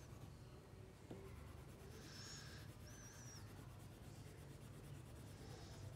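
Faint scratching of a crayon scribbling on paper in short spells of strokes, with a thin high squeak about three seconds in.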